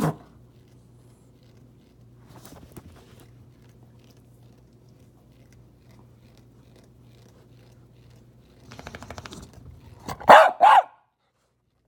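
A dog barking: one short bark right at the start, then two loud, high barks in quick succession near the end.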